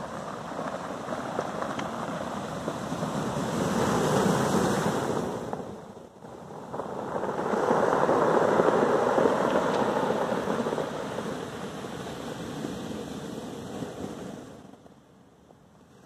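Sea waves breaking and washing up a pebble beach, in two loud surges about four and eight seconds in, easing off near the end.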